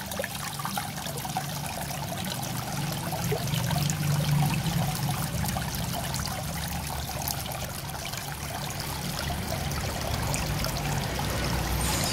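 Water trickling and splashing down a small artificial rock waterfall fountain, a steady running-water sound with a low rumble underneath.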